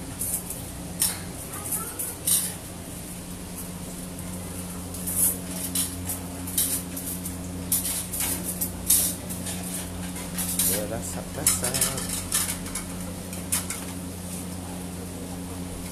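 Metal ladle clinking and scraping against a steel wok as gravy is scooped out and poured onto plates of noodles, in many sharp, irregular strikes. A steady low hum runs underneath.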